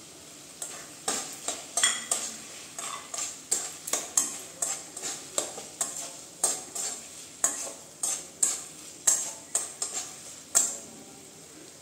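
Spatula stirring a thick cabbage-and-rice mixture in a metal kadai, scraping and knocking against the pan about two to three times a second over a steady low sizzle of frying. The strokes stop a little before the end.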